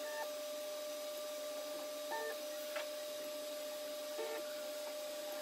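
Kingroon KP3S 3D printer auto bed leveling with a 3D Touch probe: a steady hum under short stepper-motor tones about every two seconds as the head moves and probes the bed points, with one sharp click about three seconds in.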